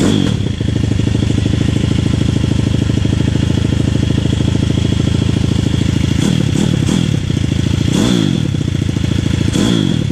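Pit bike's 140 cc single-cylinder engine running just after starting on a newly fitted carburettor whose mixture is not yet tuned. It holds a steady idle, then gets a few short throttle blips from about six seconds in, the biggest about eight seconds in.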